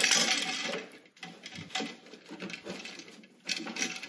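Gloved hands pushing stiff solid-copper house wires and a twist-on wire connector into a metal electrical box: irregular scraping and rustling of wire against the box, with small clicks, loudest in the first second.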